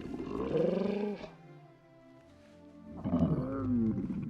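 A Night Fury dragon's voice from the animated film, two drawn-out calls that arch up and fall in pitch: one at the start and one about three seconds in. Soft orchestral film score plays underneath.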